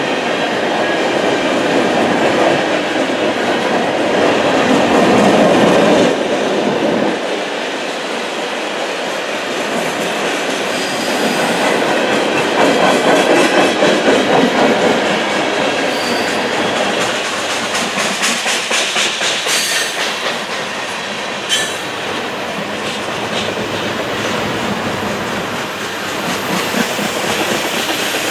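Freight train tank cars rolling past close by: steady wheel-on-rail noise that swells and fades, with rhythmic clickety-clack of wheels over rail joints in places and a few brief high wheel squeals.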